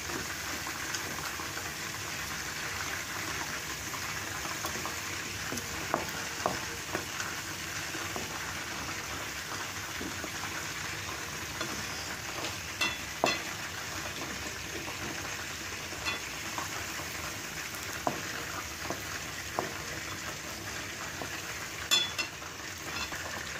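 Sliced onions deep-frying in hot ghee and oil in a karahi: a steady sizzle as they cook down to crisp golden-brown beresta. A wooden spatula stirs them, with a few sharp knocks against the pan.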